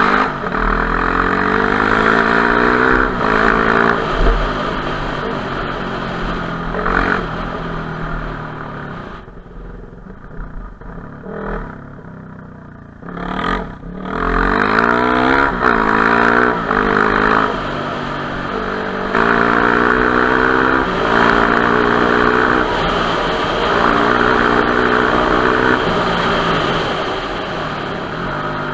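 Enduro motorcycle engine revving as it rides off-road. The revs climb and fall again and again as it pulls through the gears, and they drop away for a few seconds about ten seconds in before picking up again.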